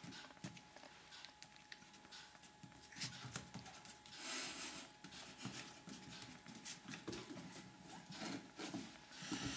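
Pomeranian puppies moving about on a wooden floor: faint scattered taps and scuffs, with a short rustling noise about four seconds in.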